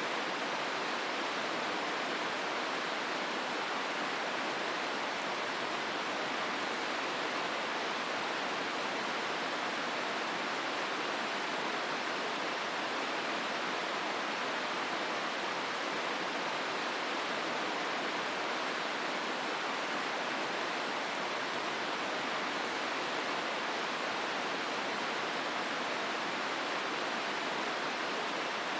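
Hozu River running through its gorge: a steady, even rush of flowing water.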